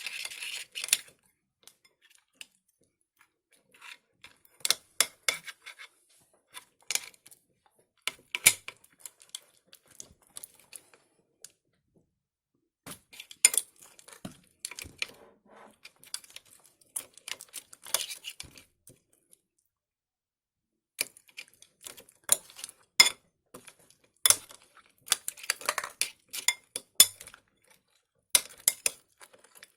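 Spoon clinking and scraping against a bowl in short bursts with quiet gaps, as slime ingredients are stirred.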